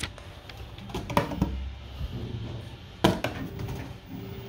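Deposit bottles going into a supermarket reverse vending machine: two sharp knocks about two seconds apart as a bottle is taken in. About three and a half seconds in, the machine's motor starts a steady hum.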